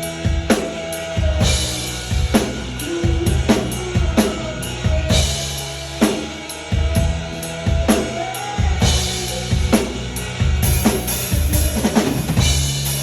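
Drum kit played to a song: steady bass drum and snare hits with cymbal crashes every few seconds, over the song's backing track with a melodic line.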